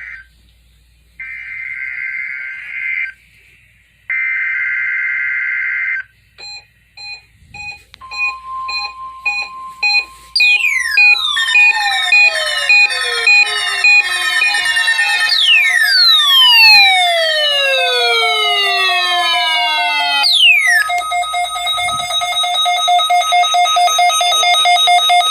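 NOAA Weather Radio weekly test signals over a radio: two buzzy data bursts of the coded alert header, then short beeps, a cascade of many overlapping falling sweep tones, and a loud pulsing mix of steady alarm tones.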